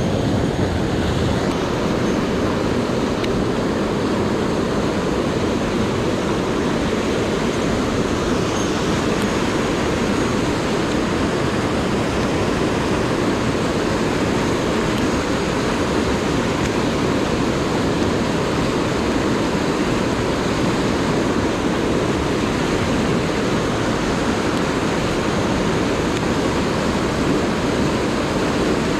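Rushing whitewater of a mountain headwater stream pouring over boulders in a small cascade: a steady, unbroken rush.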